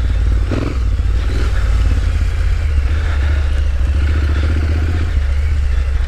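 Triumph Street Scrambler's 900 cc parallel-twin engine running as the motorcycle rides along a dirt trail, a steady low rumble.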